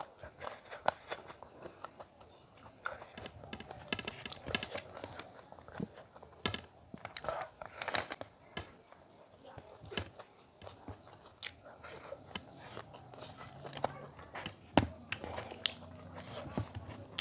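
Close-miked eating by hand: wet chewing, lip smacks and sharp sticky clicks at an irregular pace, with fingers mixing rice and curry on a plate.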